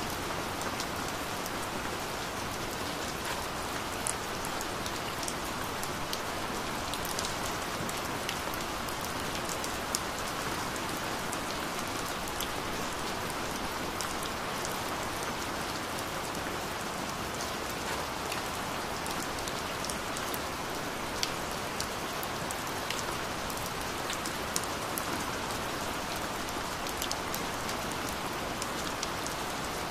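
Gentle rain falling steadily: an even hiss with scattered sharp ticks of individual drops hitting a surface.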